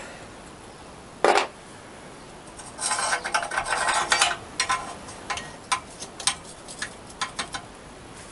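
Hand tools clinking against a motorcycle's exhaust header: one sharp metal clank about a second in, a burst of rattling, then a run of separate clicks as a socket on an extension bar is worked onto and turned on a header nut.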